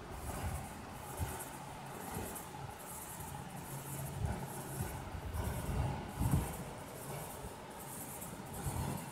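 Felt-tip sketch pen rubbing on paper as small circles are drawn, in short strokes about two a second, over a low steady rumble.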